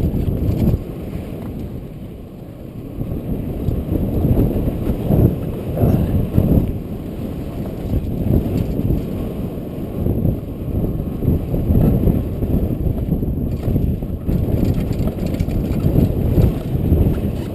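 Wind buffeting a moving camera's microphone, a low rumbling rush that swells and dips, mixed with the rumble of a ride downhill over snow.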